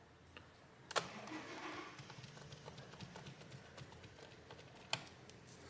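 Faint clicks and taps of a screwdriver and screws on a laptop's plastic and metal case during reassembly, with two sharper clicks about four seconds apart.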